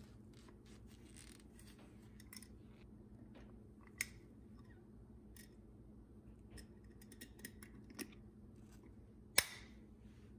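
A paper towel rubs the glass rim of a swing-top jar, then the jar's glass lid and wire clasp are handled shut with light glass-on-glass taps and clicks. The sharpest click, with a brief ring, comes near the end.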